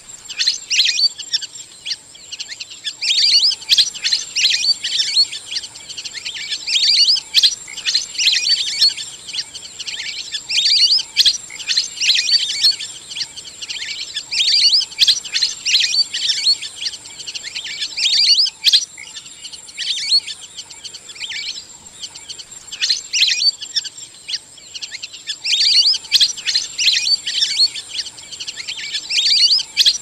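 A flock of lesser whistling ducks calling: bouts of quick, high twittering whistles, one after another every second or two, with short gaps between. A steady thin high tone runs underneath.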